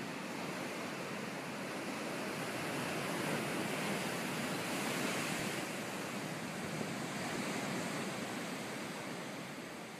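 Sea surf breaking over rocks: a continuous rush of churning water that swells to its loudest a few seconds in, then eases slightly.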